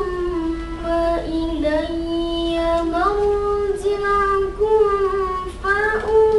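A boy reciting the Quran in the melodic tilawah style, holding long notes with ornamented turns. About three seconds in the pitch steps up.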